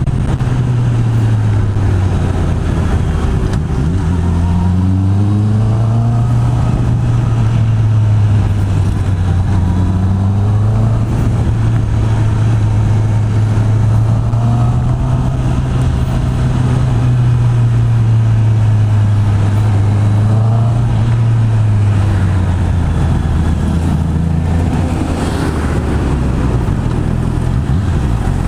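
Honda CB650R's inline-four engine through its stock exhaust, pulling under way. The engine note climbs in pitch several times as it accelerates, drops back about two-thirds in, and starts to rise again near the end.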